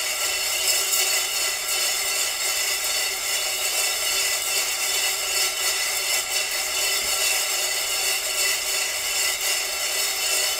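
Freshly roasted coffee beans rattling and scraping around a metal pan as it is swirled to cool them, a continuous even rattle.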